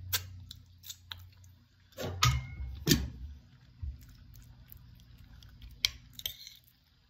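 A person chewing a mouthful of chicken and rice, with wet mouth sounds, and a few sharp clicks and knocks of a metal fork on a plate, the loudest about two and three seconds in.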